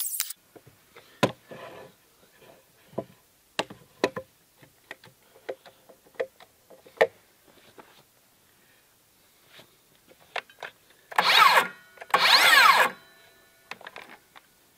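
Light knocks and clicks of lumber and a cordless circular saw being handled and set down on wooden boards. About eleven and twelve seconds in come two short, loud rushing bursts.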